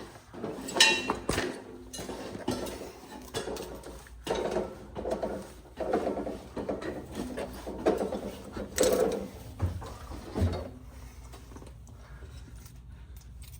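Irregular metal clanks, rattles and knocks of hardware being handled as a roof access hatch is worked open, easing off to a quieter steady background near the end.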